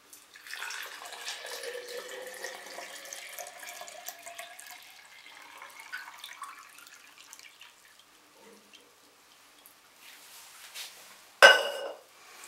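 Water poured from a plastic measuring jug into a glass jar of powdered eggshell, splashing as it fills for about six seconds. Near the end, one sharp knock with a short ring.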